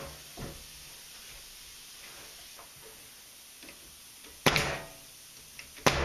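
Bostitch pneumatic nailer firing twice, about a second and a half apart, driving nails into pine boards. A light wooden knock comes near the start.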